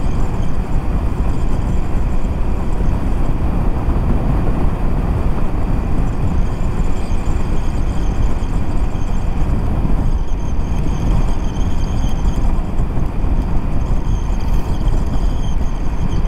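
Steady wind rush and wet road noise from a Honda CBR500R motorcycle ridden in the rain, with its parallel-twin engine running underneath. A faint high whine comes in about ten seconds in.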